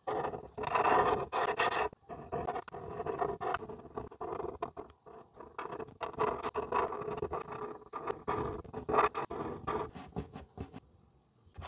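Felt-tip marker scratching over paper in quick, irregular back-and-forth strokes as a drawing is coloured in; the strokes die away near the end.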